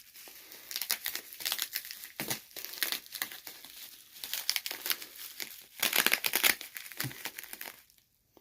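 Tape being peeled off a package by hand, with the packaging crinkling: an irregular run of crackling and crinkling, loudest about six seconds in, that stops shortly before the end.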